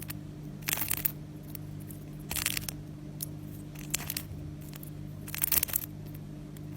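Crackling, crunching bursts from a plant rubbed against a dried orange, a foley trick for the sound of ice cracking. Four short bursts about every one and a half seconds, over a steady low hum.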